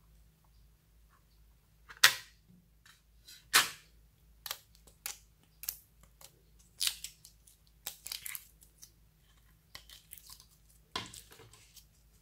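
The plastic lid of a compartmented slime container clicks open, with two sharp snaps about 2 and 3.5 seconds in. Then fingers poke and pull slime in the plastic compartments, making a run of smaller sticky pops and clicks, with a louder one near the end.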